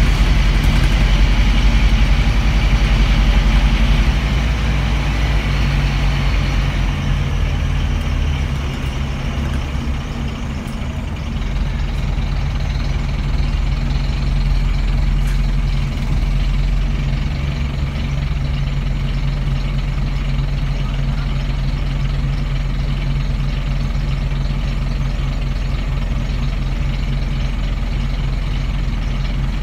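Scania N230UB bus's engine running, with the cooling fan roaring continuously, heard from inside the rear of the bus. The fan is stuck on because of a broken fan sensor. The sound is loudest for the first few seconds, dips, then settles to a steady level.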